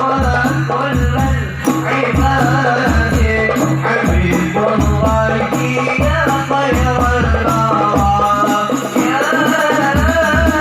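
Sholawat devotional music: a wavering melody over a steady low drum beat with rattle-like percussion.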